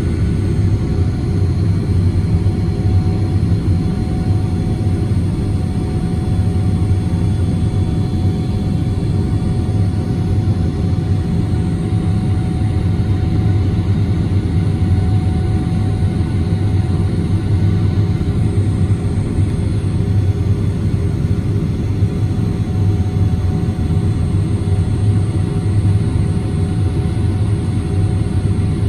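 Steady cabin noise inside a Boeing 777-300ER climbing out: a constant low rumble of its GE90 engines and the airflow past the fuselage, with a few faint steady tones above it.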